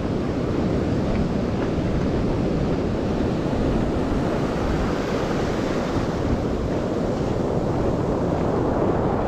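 Steady rush of ocean surf mixed with wind buffeting the microphone, an even noisy roar with no distinct events.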